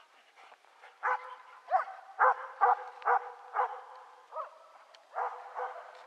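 A dog barking repeatedly, about nine short barks in a row starting about a second in, some of them sliding up in pitch.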